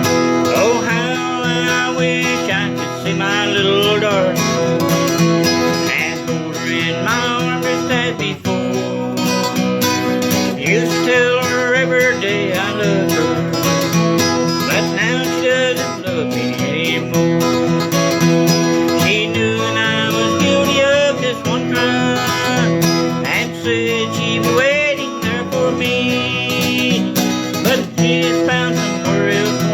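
Country-bluegrass music played on acoustic guitar, with a higher lead melody that wavers and bends in pitch over it, in an instrumental passage of the song.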